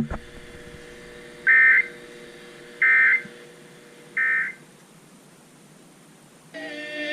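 Emergency Alert System end-of-message signal on a weather radio receiver: three short bursts of digital data tones about 1.3 s apart, marking the close of a severe thunderstorm warning, over faint radio hum and hiss. Music with singing comes in near the end.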